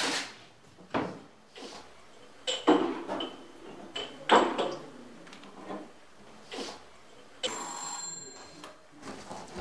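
Kitchen cupboard doors and items knocking and clattering as they are taken out and set on the counter. About seven and a half seconds in, an electric doorbell rings for about a second and a half, signalling guests at the door.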